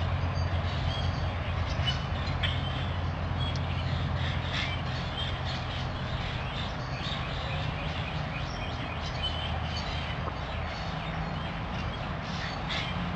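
Small birds chirping and calling on and off over a steady low hum.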